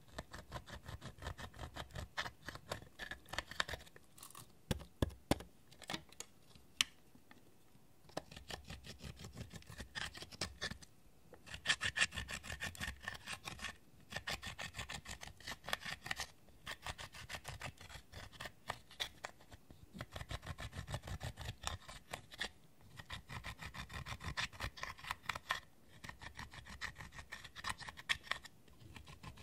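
A pointed metal tool scraping and crumbling pressed eyeshadow out of the pans of a palette: rapid scratching strokes in bursts of a few seconds, with short pauses between.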